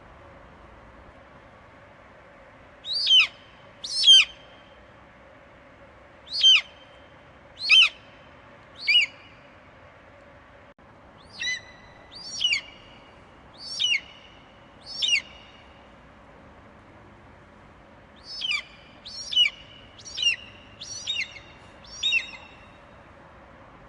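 Eagle calling: short, high screeches, each falling sharply in pitch, given in three loose bouts of about five calls each.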